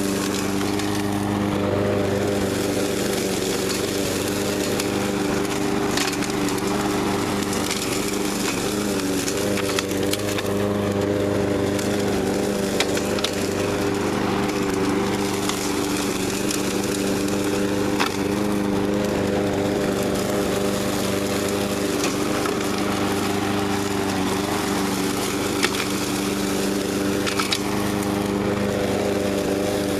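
Troy-Bilt TB360 walk-behind mower's engine running at a steady speed under load while it side-discharges through dry leaves. A few sharp ticks come from twigs and debris struck by the blade.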